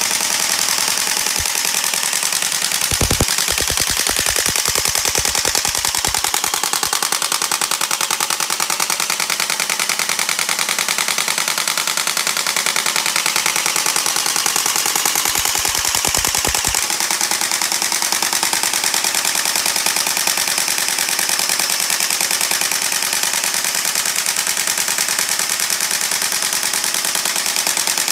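LCT AK-pattern electric airsoft rifle with electric blowback, firing continuously on full auto: a fast, even rattle of the gearbox cycling and the bolt snapping back with each shot.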